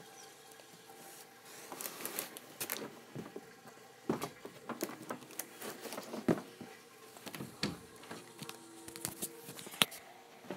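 Scattered knocks, rubbing and rustling of a phone being handled and carried about, with irregular clicks and a sharp click near the end.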